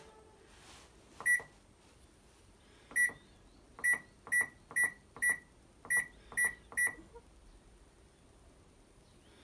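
maxzen washing machine control panel beeping as its buttons are pressed: nine short, high single-tone beeps, one about a second in, another near three seconds, then a quicker run of seven.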